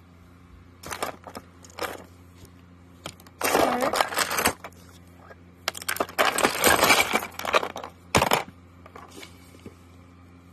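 Small hard plastic toys, Littlest Pet Shop figures among them, clattering and rattling against each other as a hand rummages through a bin full of them. It starts with a few separate clicks, then comes two longer spells of rattling and a last single clack.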